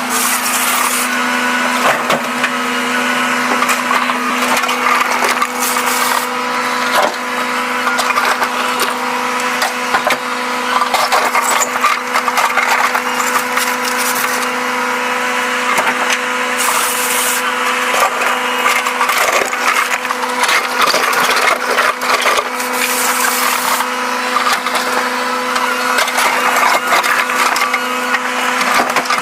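Volvo 360 excavator working: its engine and hydraulics run with a steady hum. Irregular crunching and cracking clatter goes on throughout, and there are several short hissy surges.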